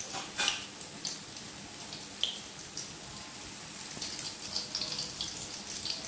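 Tofu patties shallow-frying in hot oil in a wok: a steady sizzle with scattered pops and crackles, the patties' undersides browning before they are turned.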